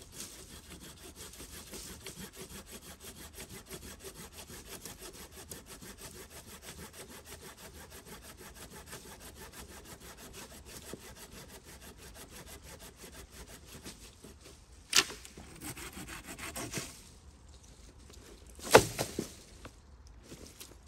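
Small hand saw cutting through a fallen branch with quick, steady back-and-forth strokes. The sawing stops about two-thirds of the way through, followed by two sharp cracks, the second the loudest.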